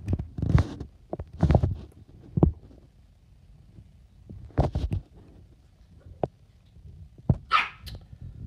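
A Staffordshire bull terrier puppy and a Rottweiler moving about a fabric dog bed. Irregular short noisy bursts come several times in the first five seconds, and a longer, higher one a little past seven seconds.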